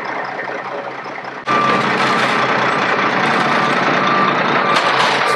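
Straight-piped diesel semi tractor running, its engine getting suddenly louder about one and a half seconds in, with a back-up alarm beeping in short repeated beeps over it.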